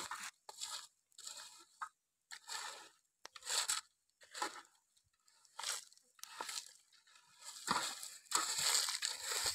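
A wooden stick raking and scraping through ash and burnt charcoal around a clay pot: a series of scraping strokes about one a second, longer and louder near the end.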